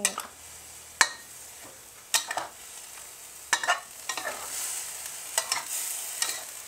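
A metal spatula scraping and tapping against a wok as mushrooms, minced pork and leaves are stirred, a stroke every second or so, over a steady faint sizzle from the simmering curry.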